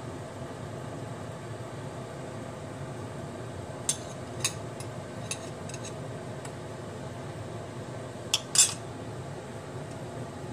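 Metal spoon clinking against the rim of a ceramic bowl and pan as beaten egg is scraped out into boiling stock. The light clinks start about four seconds in, with a louder pair near the end, over a steady hiss.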